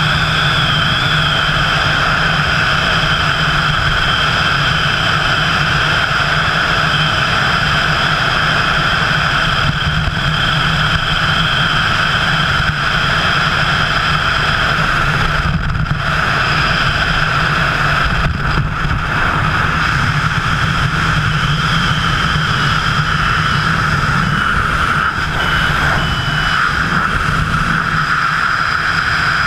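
Steady, loud wind rush over a wingsuit jumper's helmet-mounted camera in freefall flight, buffeting the microphone.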